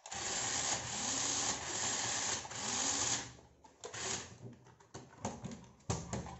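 Small electric drive motor and gearbox of a 1:18 scale 4WD toy RC rock crawler whirring as it is driven from the remote: one long run of about three seconds with the pitch rising and falling, then a few short bursts.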